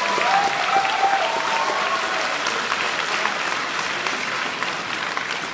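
Audience applauding, a dense steady clapping that slowly eases toward the end.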